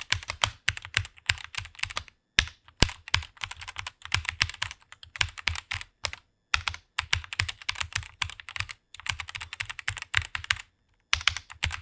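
Typing on a computer keyboard: fast runs of key clicks with short pauses between bursts.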